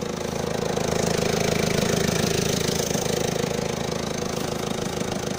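Citroën Berlingo's four-cylinder turbodiesel engine idling steadily, heard from beside the open engine bay.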